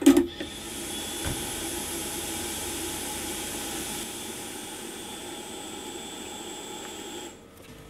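861D hot air station's handpiece blower running with a steady rushing hiss and a thin high whistle, cooling the heater after the handpiece is holstered. It cuts off abruptly about seven seconds in as the station goes into its sleep state.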